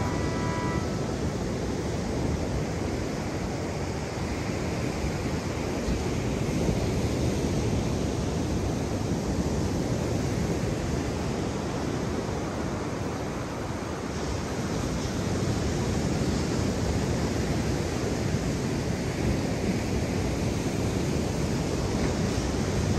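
Ocean surf and wind: a steady rushing noise, heaviest in the low range, with wind on the microphone.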